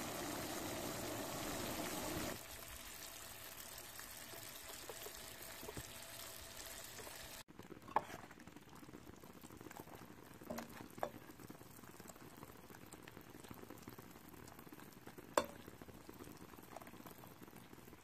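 Sugar syrup bubbling at a boil in a pot, louder for the first two seconds and then steadier, with a few light clicks scattered through the second half.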